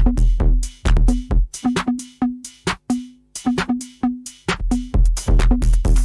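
Electronic dance music from a DJ set: drum-machine kicks and clipped percussion hits with a short pitched stab repeating on the beat. The deep kick drops out about halfway through and comes back near the end.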